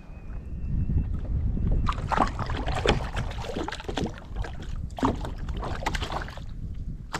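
Wind buffeting the microphone in a low rumble, with water splashing and slapping against a kayak in choppy water, busiest from about two seconds in until near the end.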